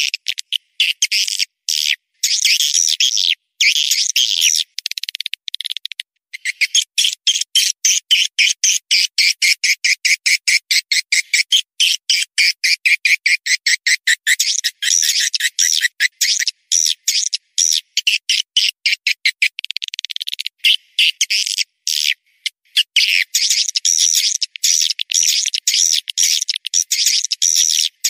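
Edited swiftlet call track: a recording of swiftlets chirping and twittering, played to lure swiftlets into a nesting house. High chirps and rapid clicking trills come in bursts cut by sudden short silences, with nothing in the low range.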